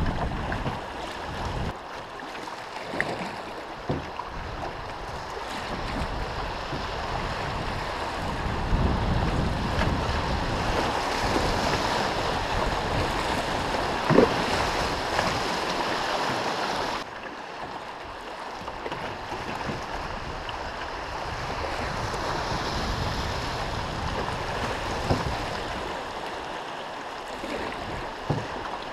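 Shallow river water rushing over riffles around a moving canoe, with wind on the microphone and a few light paddle knocks against the hull. The rush grows louder toward the middle and then drops suddenly about two-thirds of the way through.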